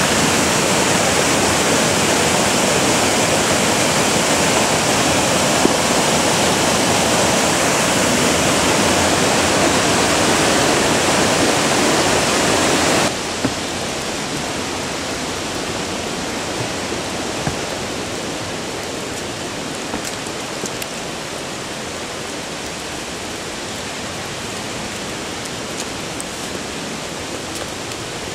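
Rushing water of a stream, loud and steady. About halfway through it drops suddenly to a quieter steady rush with a few faint taps.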